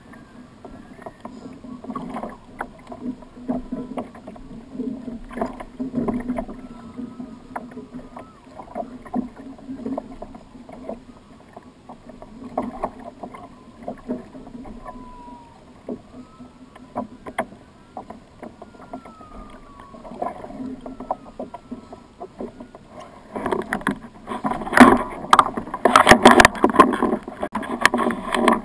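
Water lapping and knocking against a plastic Hobie kayak's hull, with scattered knocks and rattles from gear on deck. Near the end the knocking and splashing becomes much louder and denser.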